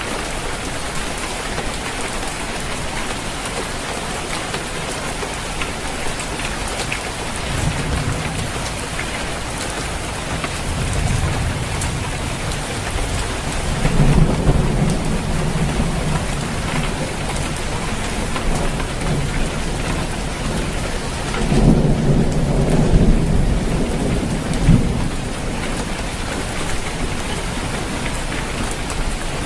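Steady heavy rain falling on a roof, with rolls of thunder: low rumbles swell about a quarter of the way in and again around the middle, and the longest, loudest roll comes about three-quarters of the way through.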